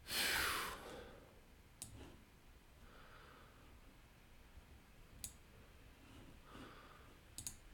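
A short breathy exhale at the start, then a few faint, sharp computer-mouse clicks spaced seconds apart, two of them in quick succession near the end.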